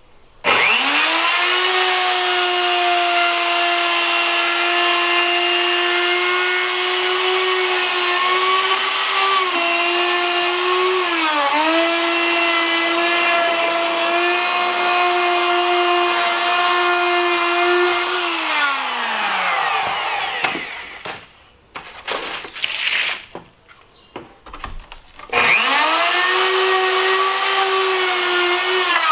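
Electric router with a 1/4-inch bearing-guided side-cutter bit trimming Formica laminate flush with a plywood countertop edge. It spins up to a steady high whine whose pitch dips briefly twice under load, then is switched off about 18 seconds in and winds down. A few seconds later it is started again, spins up and runs on.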